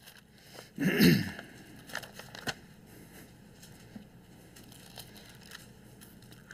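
Thin Bible pages being leafed through and turned at a pulpit microphone: a louder paper rustle about a second in, then a few soft page ticks and handling noises.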